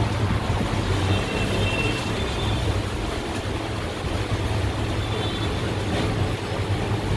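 Steady low background hum or rumble, even throughout, with no distinct event.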